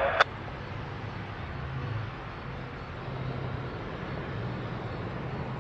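Steady low rumble of a diesel locomotive moving a freight train slowly through the yard. Just after the start, a scanner radio transmission cuts off with a squelch click.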